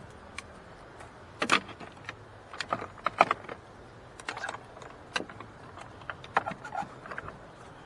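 Irregular clinks and clacks of hand tools being handled and set down, the loudest about one and a half and three seconds in.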